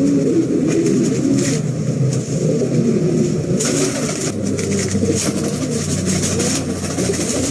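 Several Pomeranian Pouter pigeons cooing, their calls overlapping continuously, over a steady low hum.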